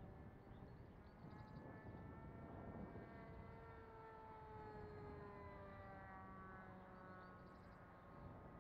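Faint engine drone of a Kaos 60 radio-controlled model airplane in flight overhead, its pitch slowly sliding up and down as the plane passes.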